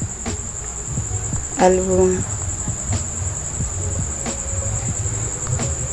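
Crickets trilling steadily at a high pitch, a continuous pulsing chirr, over a low background rumble with a few faint clicks.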